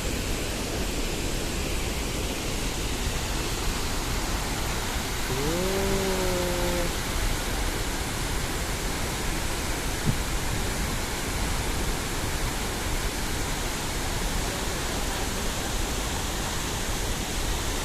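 Waterfall rushing, a steady, unbroken roar of falling water. About six seconds in, one short call rises in pitch and then holds for a second or so.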